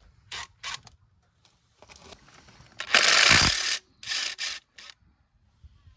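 Drill with a socket undoing bolts in short bursts with a ratcheting rattle. The longest and loudest run starts about three seconds in.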